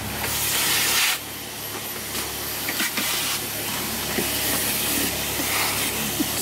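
Vacuum cleaner running with a long hose, its nozzle sucking up flies from the cockpit surfaces: a steady rushing hiss, loudest about a second in, then a little quieter, with a few faint clicks.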